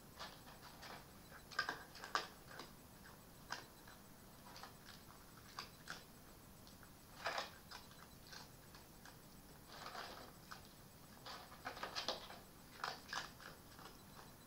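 Red fox eating from a bowl: faint, irregular crunching and clicking as it chews, coming in short clusters.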